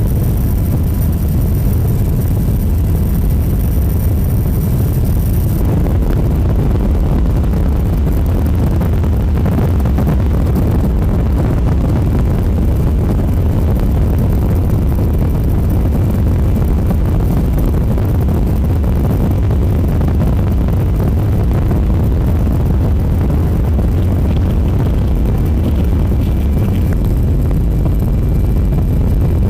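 Loud, steady low rumble of a vehicle's engine running without a break.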